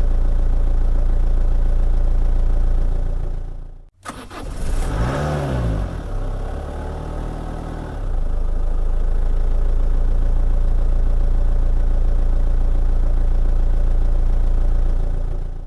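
A car engine running steadily, fading out about four seconds in. After a brief gap, another car engine starts with a quick rev that rises and falls, then settles into steady running that fades at the end.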